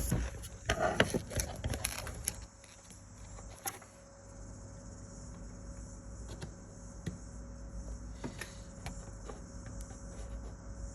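A cluster of light clicks and knocks from objects being handled on a work surface in the first couple of seconds, then sparse faint ticks over a steady low hum.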